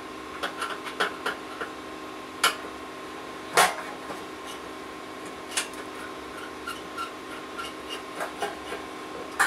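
Screwdriver scraping and turning screws out of a dryer heating element's sheet-metal housing. There are scattered light clicks and a few sharper metal knocks, the loudest about three and a half seconds in, over a faint steady hum.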